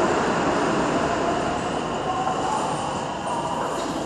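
JR West 321-series electric commuter train pulling out of the station: a steady run of wheel and track noise with a faint motor whine rising in pitch as it gathers speed. The sound eases a little as the train draws away.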